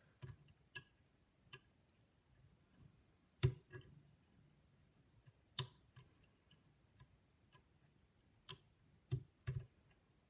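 Faint, irregular metallic clicks and ticks of a lever-lock pick and tension tool working inside a five-lever Eurospec curtain lock, nudging the levers one by one. A louder click comes about a third of the way in, and two more come close together near the end.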